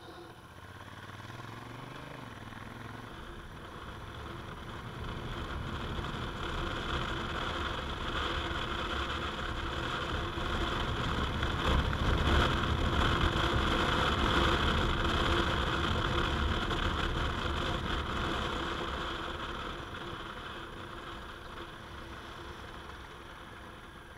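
Honda Africa Twin's parallel-twin engine with wind and road noise while riding. The engine note rises as the bike pulls away in the first few seconds, and the sound grows louder toward the middle and eases off near the end.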